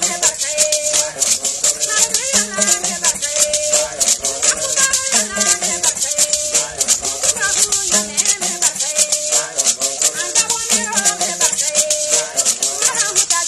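Traditional Bissa griot music. Gourd rattles are shaken in a fast, steady rhythm, a one-string calabash fiddle repeats a short phrase of held notes, and voices sing over them. The phrase comes round about every two and a half to three seconds.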